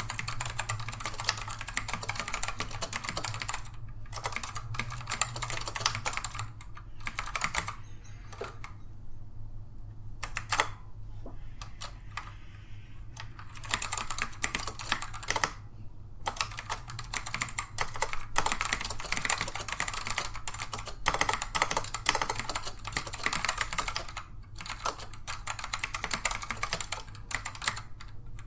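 Fast typing on a Dell AT102W keyboard with black Alps switches: a dense run of non-clicky key presses, thinning to a few scattered strokes with short pauses from about eight to thirteen seconds in.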